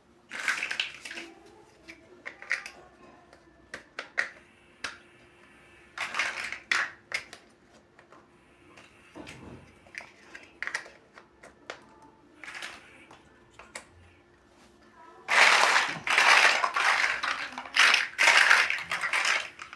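Plastic building blocks being handled and snapped together: scattered sharp clicks and short rattles, then several seconds of dense, louder clattering near the end.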